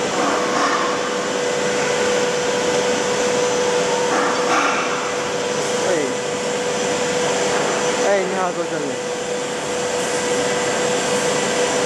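A 1200 mm rotary-head blown film extrusion machine running: a steady rushing of its blowers and motors with one held hum tone through it.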